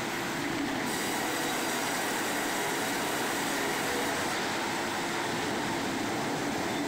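Sawmill machinery running with a steady, even clattering noise, like conveyors and rollers moving lumber.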